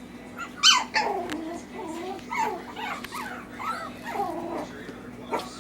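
Five-week-old Yorkshire Terrier puppies yipping and whining: one sharp, high yip just under a second in, then a run of short, wavering whines and whimpers.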